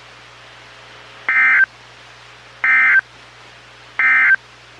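Emergency Alert System end-of-message SAME data burst, sent three times: three short, shrill bursts of warbling digital tones about 1.3 s apart. They signal the end of the alert broadcast.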